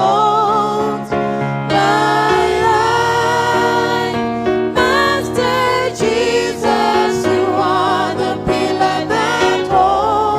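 Gospel choir singing with instrumental backing, voices holding and sliding between sustained notes over a steady bass.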